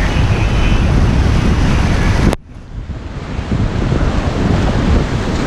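Rushing whitewater and wind buffeting the microphone while running river rapids. A little over two seconds in, the sound cuts out suddenly to a muffled low rumble, then the rushing builds back up.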